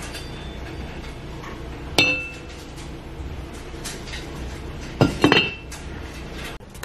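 Lid of an enamelled cast-iron Dutch oven clinking against the pot: one sharp ringing clink about two seconds in, then a quick cluster of clinks about five seconds in as the lid is set back on.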